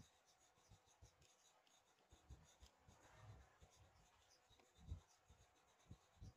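Faint scratching of a pencil on lined notebook paper, short sketching strokes in an irregular run, with a soft low knock about five seconds in.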